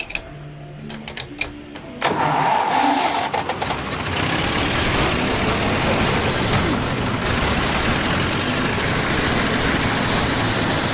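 A few sharp clicks, then about two seconds in a petrol engine starts suddenly and keeps running loudly and steadily, growing louder near four seconds in. It starts after work on a spark plug that was named as the fault.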